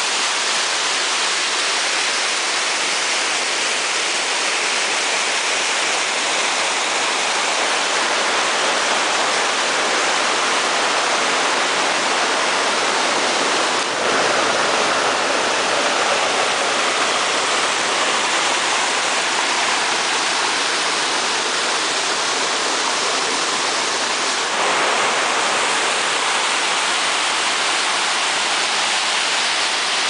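Small waterfall cascading over rocks: a steady, loud rush of white water, with small jumps in level about halfway through and again later.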